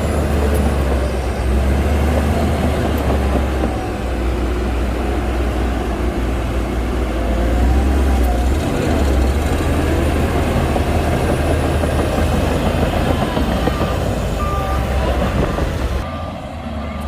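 Shantui DH17C2 bulldozer's diesel engine running steadily under load, with a heavy low drone and the clatter of the machine working. A few short, evenly spaced beeps sound near the end.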